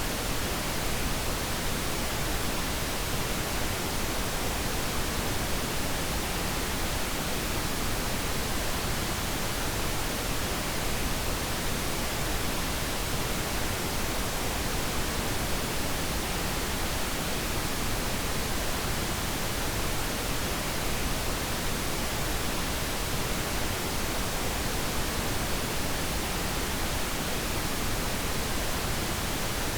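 Steady synthetic noise for sleep: an even, unchanging hiss with no rhythm or events.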